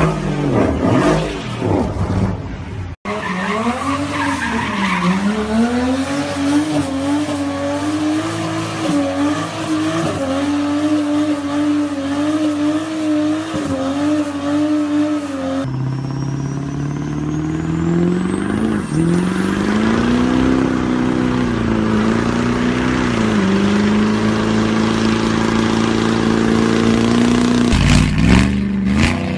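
Cars doing burnouts: an engine held at high revs with the pitch wavering up and down, over the hiss and squeal of spinning tyres. Several clips are cut together, so the engine sound changes abruptly about three seconds in, near the middle, and just before the end.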